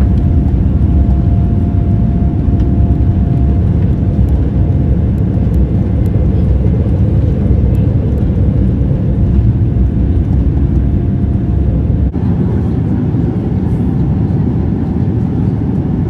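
Steady low rumble of a vehicle in motion, heard from inside, with a faint steady whine over it at times.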